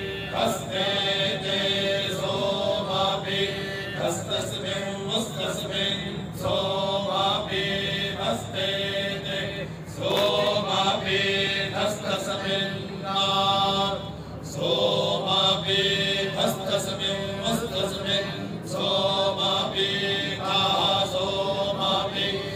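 A group of male voices reciting Vedic mantras in unison, in phrases broken by short pauses for breath.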